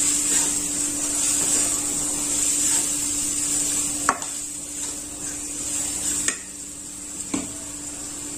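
Wooden spatula stirring and scraping onion-and-spice masala in a metal kadai, with a steady frying sizzle as the spices roast in oil. The spatula knocks sharply against the pan three times in the second half.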